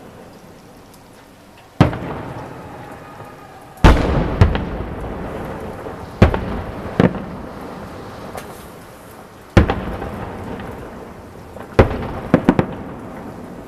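Fireworks salute shells bursting in the sky: a series of loud booms every one to three seconds, some in quick succession near the end. Each boom is followed by a long rumbling echo.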